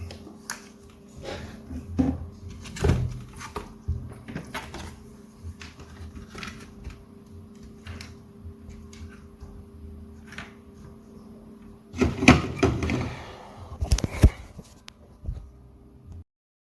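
Scattered small clicks, taps and knocks of tools and parts being handled on an electronics repair bench over a faint steady hum, with louder clatter about twelve seconds in and again around fourteen seconds. The sound cuts off suddenly near the end.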